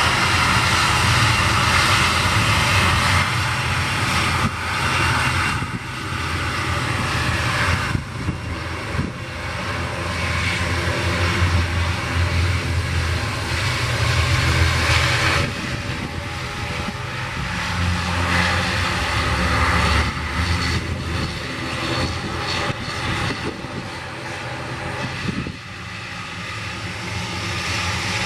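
Twin turboprop engines of an ATR 42-600 airliner running at taxi power, a steady propeller drone over a low hum that swells and eases a little, quieter for a moment near the end.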